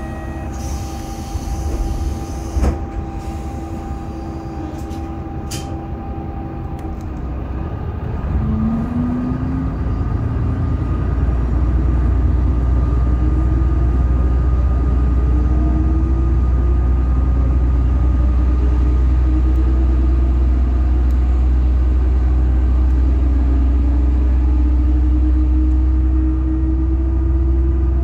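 Diesel railcar engine idling with a steady hum, a few sharp clicks over it. About eight seconds in, the engine revs up as the railcar pulls away, its deep rumble growing louder with rising tones as it gathers speed.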